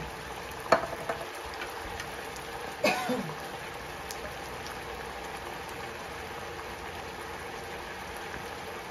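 Diced pork simmering in a little water and oil in a nonstick wok, a steady bubbling hiss, the water added to stop the pork popping in the oil. Two sharp knocks, about a second in and about three seconds in, the second with a short throaty sound.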